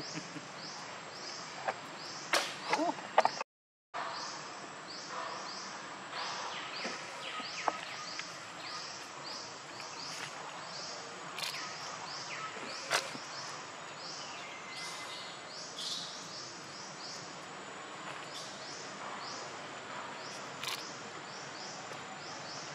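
Outdoor forest ambience: a high, falling call repeats about twice a second over a faint steady high buzz, with scattered short sharp chirps. A couple of louder short cries come about two to three seconds in, followed by a brief dropout to silence.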